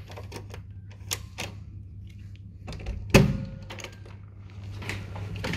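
Scattered clicks and knocks, with one louder thump about three seconds in, over a steady low hum.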